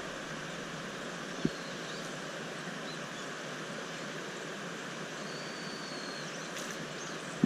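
Steady rush of river water running over a shallow riffle, with a single soft knock about a second and a half in and a faint thin high note past the middle.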